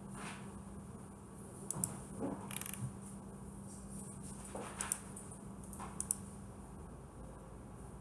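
A few light computer mouse clicks, spaced irregularly with a quick pair about six seconds in, over a faint low steady hum.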